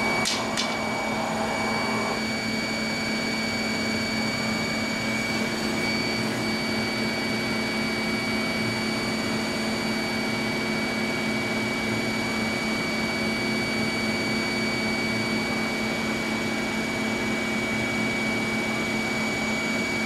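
Spindle of a 2005 Prodis PDL-1500L vertical machining centre running at steady speed: a high, even whine over a low hum. There are two quick clicks about half a second in.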